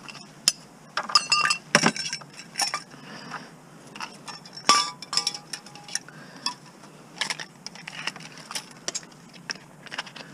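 Metal scrap parts clinking and knocking as an item is pulled apart by hand. It is an irregular string of sharp clinks, some ringing briefly, loudest about a second in and again about halfway.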